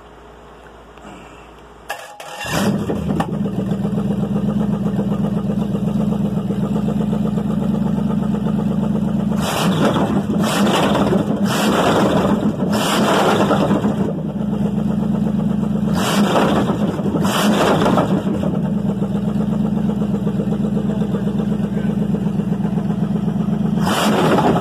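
Chevrolet 305 small-block V8 firing almost at once about two seconds in, started without throttle, then running steadily. Several louder bursts of a second or so come and go while it runs.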